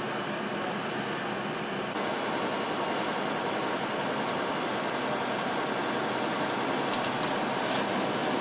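Steady mechanical hum and noise of idling emergency vehicles, slightly louder about two seconds in, with a few short clicks near the end.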